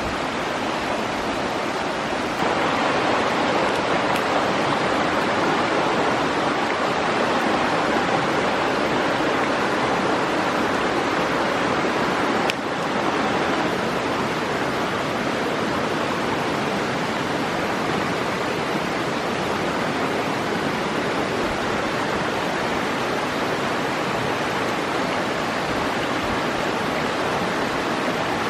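Rushing water of a forest stream, a steady noise that gets louder about two seconds in.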